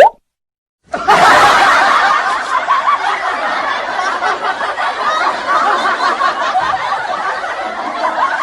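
A quick rising whistle, then after a short gap a crowd laughing, many voices at once, for about eight seconds.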